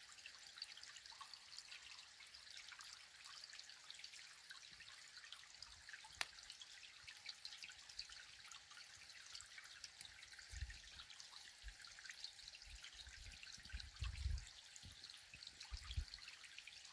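Faint dripping and trickling of spring water into a small pond, over a soft high hiss. A few soft low bumps come in the second half.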